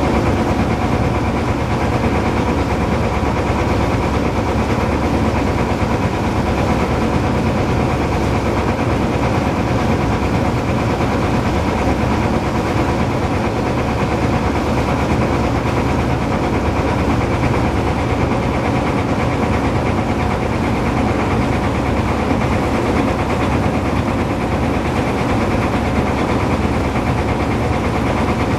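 A tour boat's engine running steadily as the boat travels along the water: an unbroken engine drone with a few constant tones.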